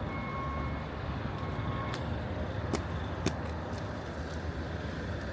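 Strong wind buffeting the microphone in a snowstorm, a steady low rumble. A faint beep sounds twice in the first two seconds, and a few sharp clicks follow.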